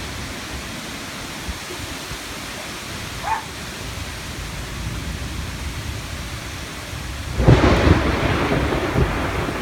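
Heavy rain pouring steadily, then a loud crack of thunder breaking about seven seconds in and rumbling on.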